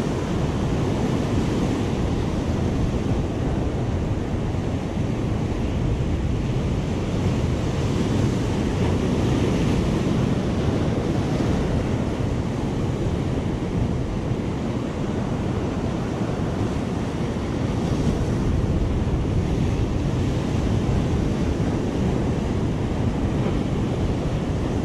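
Ocean surf washing steadily over the shore rocks, with wind rumbling on the microphone.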